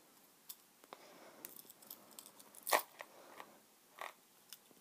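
Quiet handling sounds as a pocket watch is worked at with one hand to get it open: a few scattered short clicks and crinkles, the loudest just past the middle.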